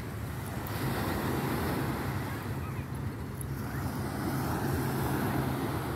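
Surf washing on the shore and wind buffeting the microphone, over a steady low engine hum.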